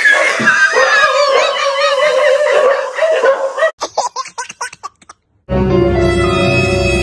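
A baby laughing heartily, breaking into short giggles that trail off. After a brief gap, an ominous, scary-sounding music track starts about five and a half seconds in.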